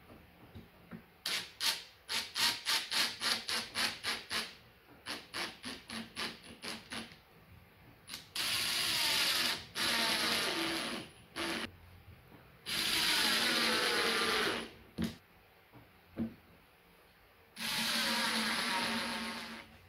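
Woodworking tools on wood: a run of quick rhythmic strokes, about four a second, then a power drill running in four bursts of a second and a half to two seconds each, its pitch dropping as it loads up.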